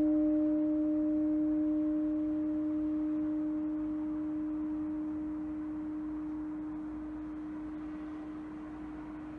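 A church bell's ringing dies away after the last stroke: one steady hum with fainter overtones, slowly fading, with no new strikes.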